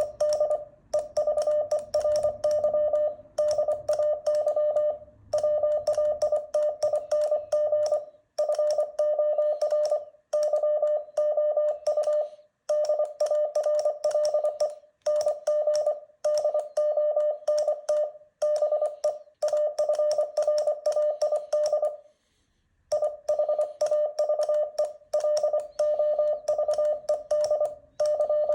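Morse code: a single steady beep tone keyed on and off into short dots and longer dashes, with short gaps between letters and a longer break about three-quarters of the way through. The code spells out song lyrics word by word.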